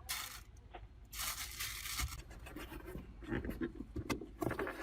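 Tearing and scraping handling noises as a dash-cam bracket backed with adhesive tape is attached to a windshield: a brief burst at the start, a longer one about a second in, then shorter scrapes and rubs.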